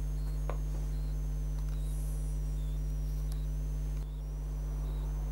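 Steady low electrical hum with a ladder of overtones, with faint, short, high-pitched chirping tones scattered over it; the hum drops briefly about four seconds in.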